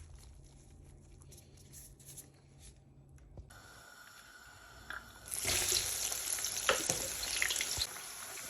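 Food sizzling in a hot cooking pot: a quiet hiss begins about three and a half seconds in and turns into much louder, steady sizzling about five seconds in, with a few small clicks.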